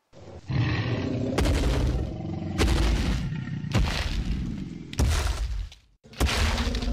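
Loud edited soundtrack of heavy booming crashes, about one a second, over a low droning tone; it cuts off abruptly near the end.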